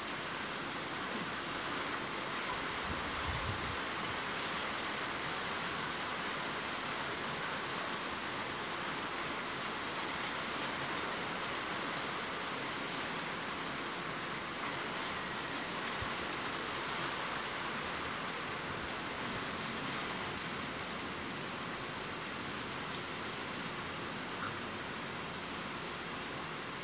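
Steady, heavy rain falling, an even dense hiss of raindrops.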